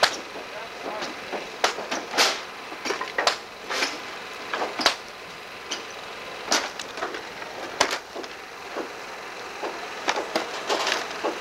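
Irregular sharp knocks and cracks of wood as hand tools pry and strike boards and siding off the walls of an old log house being dismantled, with a quicker run of knocks near the end.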